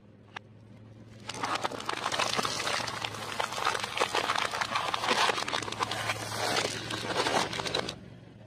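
A car tyre rolling over clear plastic cups full of candy-coated chocolates: a dense run of crackling and crunching as the plastic splits and the candies crush and scatter. It starts about a second in and stops near the end, over a faint low steady hum.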